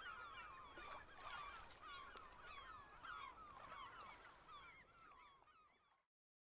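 A faint flock of birds honking and calling over one another, many short, overlapping falling calls. It fades a little toward the end and cuts off about six seconds in.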